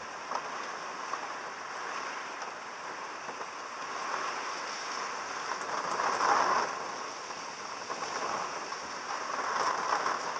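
Heavy hurricane rain, driven by the wind, pelting an RV trailer's window and roof, heard from inside the trailer. It is a steady hiss that swells louder in strong gusts about six seconds in and again near the end.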